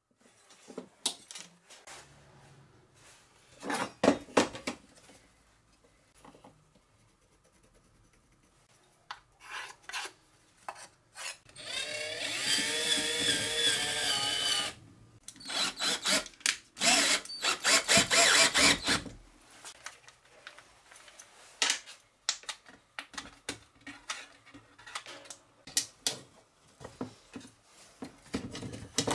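A cordless drill runs for about three seconds, about halfway through, its motor whine wavering as it bores into a transformer's base plate. A few shorter, rougher drill bursts follow. Scattered clicks and knocks of parts and tools being handled on a workbench come before and after.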